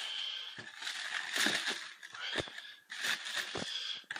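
Tissue paper rustling and crinkling as it is pulled back inside a cardboard shoebox, with a few light knocks from handling the box and the shoes.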